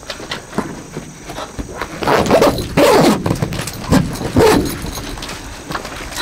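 A dog barking a few times, in clusters about two seconds in and again near four and a half seconds, over the rasp of a zipper being drawn along a tent's clear vinyl window panel.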